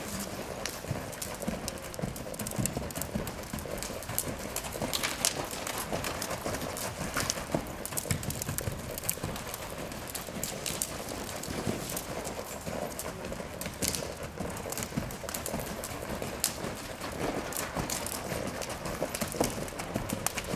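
Hooves of a Quarter Horse gelding loping on sand arena footing: a continuous run of hoofbeats, with a few sharper clicks standing out now and then.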